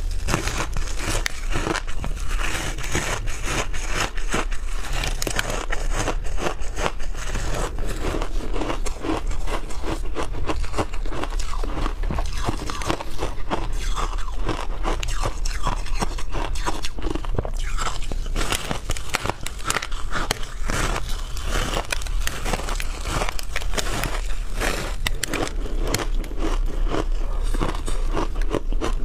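Frozen shaved ice crunching as it is bitten and chewed, a dense, continuous run of crackles.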